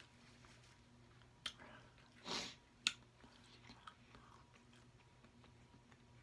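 Faint close-up eating sounds: a few sharp mouth clicks and a short swish about two seconds in, over a low steady hum.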